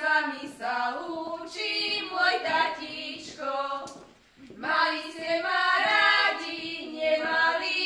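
A group of women singing a Slovak folk song together without instruments, in sung phrases with a short breath pause about four seconds in.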